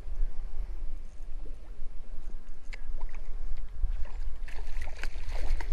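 Wind buffeting the microphone with an uneven low rumble, and a few faint clicks in the second half.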